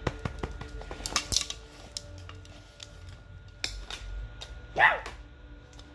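Cloth rustling and small clicks and knocks of a plush hand puppet being handled and dressed, busiest in the first second and a half. One short, louder sound about five seconds in.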